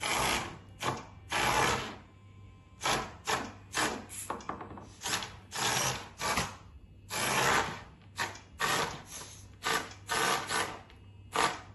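Small geared DC drive motors of a phone-controlled robot car whirring in about twenty short spurts, starting and stopping as it is driven back and forth.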